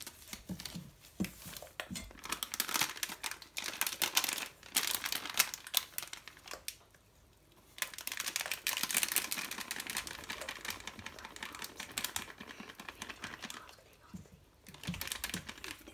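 Cookie-mix packet crinkling as it is squeezed and shaken to empty it into a mixing bowl. The crinkling comes in irregular bursts, with a short pause about halfway through and another near the end.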